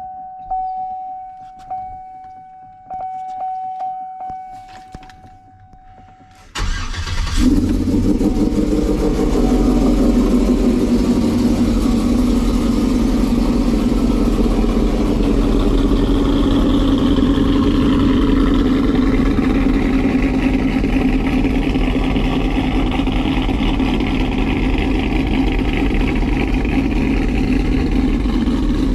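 Cammed GMC Sierra pickup's V8 started cold: a steady electronic tone and a few clicks, then about six and a half seconds in the engine catches suddenly and settles into a loud, steady idle.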